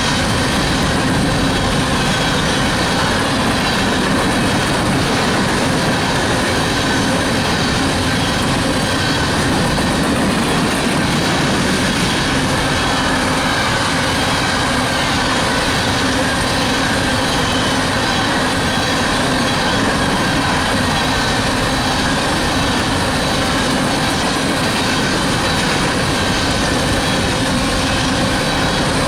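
Coal train cars rolling past: a steady, loud rumble and rattle of steel wheels on the rails, with a faint wavering wheel squeal.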